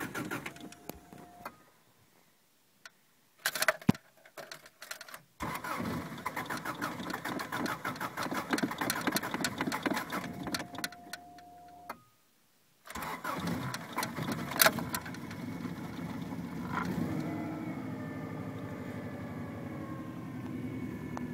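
Subaru EJ20G turbocharged flat-four being cranked cold by its starter in repeated attempts with pauses between, then catching about two-thirds of the way in and running with a wavering idle. A hard cold start that the owner goes through every morning, with check-engine code 24 set, the idle air control valve code on these Subarus.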